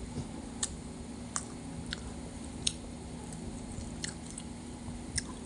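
A person chewing crispy battered fried street food, kwek-kwek and calamares, close to the microphone, with sharp irregular clicks and crunches every half-second to a second over a steady low hum.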